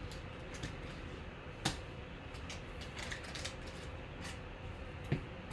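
Glossy Panini Prizm football cards being flipped through and slid against each other by hand, giving light scrapes and clicks, with two sharper snaps about a second and a half in and again near the end, over a faint steady hum.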